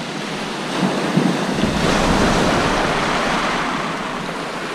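Sea waves breaking and washing up the beach: a rush of surf that swells about a second in, then slowly eases off.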